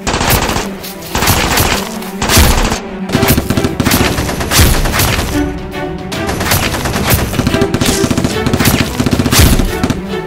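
Bursts of rapid, machine-gun-like gunfire that break out suddenly and go on in volleys, laid over background music as a battle sound effect for a toy-blaster fight.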